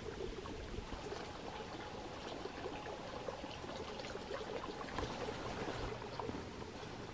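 Water trickling and bubbling steadily, with many small pops and drips.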